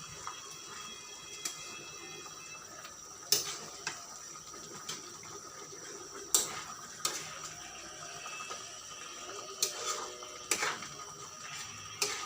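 A utensil knocking against a cooking pan about ten times at irregular intervals, as chicken is stirred in a tomato sauce over a steady bubbling hiss from the pan.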